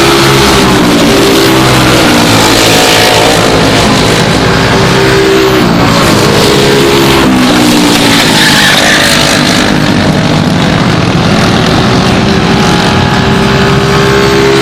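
Several four-stroke Briggs & Stratton Animal kart engines running at racing speed together. Their pitch drops as the drivers lift for corners and climbs again as they accelerate out, the engines overlapping one another.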